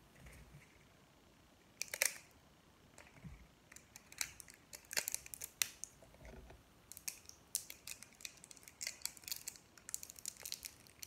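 Plastic pump bottle handled in the hands: scattered sharp clicks and taps of the pump head being turned and pressed, thickening into a quick run of clicks near the end as wash is pumped into a palm.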